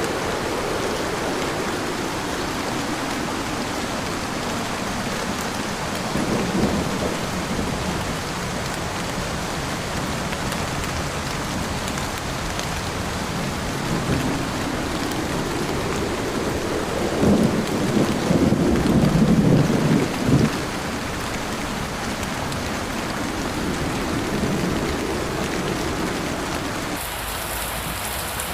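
Heavy rain falling steadily on a moving car, a constant hiss, with low rumbles swelling now and then; the longest and loudest comes a little past the middle.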